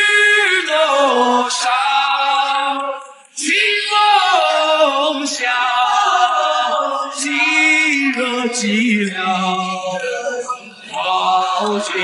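Background song in which male voices sing in a chant-like style. The singing breaks off briefly about three seconds in.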